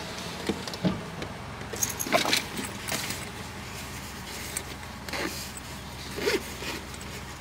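Rummaging through a handbag in a parked car: scattered clinks and rustles at irregular moments, like keys and small items knocking together, over the steady low hum of the idling engine.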